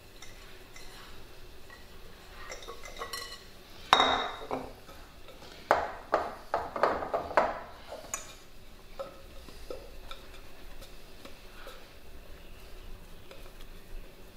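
Mixing bowls clattering on a stone countertop: a sharp knock about four seconds in as a glass bowl is set down, then a quick run of knocks and scrapes as kneaded dough is worked loose in a plastic mixing bowl, with softer handling sounds after.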